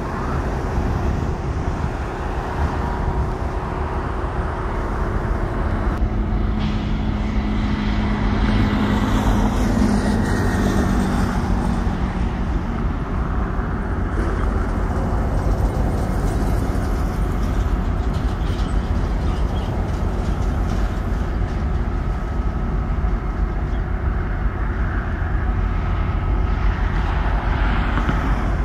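Steady low rumble of road traffic mixed with Union Pacific diesel locomotives running, with a vehicle passing about eight to ten seconds in.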